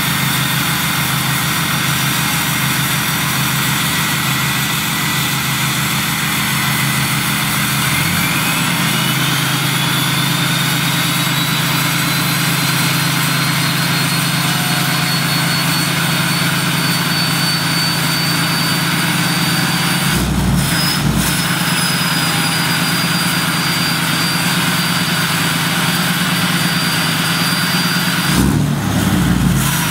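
Dodge Ram's 6.7 L Cummins turbo-diesel idling with a high, jet-like turbo whistle that rises in pitch about eight seconds in and then holds steady. Two brief dull bumps come about twenty seconds in and near the end.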